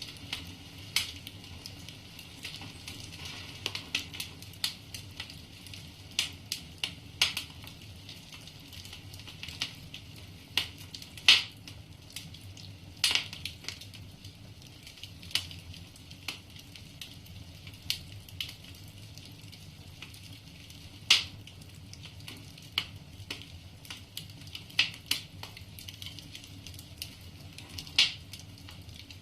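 Wood fire burning in a fireplace: a steady soft hiss with irregular crackles and snaps of the burning logs, a few of them sharp, loud pops.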